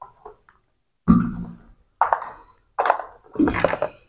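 Four short knocks and handling sounds, each starting suddenly and dying away, about a second apart: hands moving parts and wiring against an electric geyser's plastic body.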